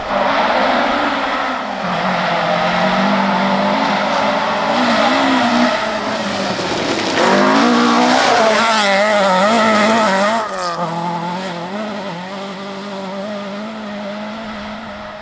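Ford Escort rally cars' four-cylinder engines at full throttle on gravel, revs rising and falling through gear changes, with a wavering pitch in the middle as the car works through a corner. About ten seconds in the sound cuts to another car pulling away, its engine steadier and fading.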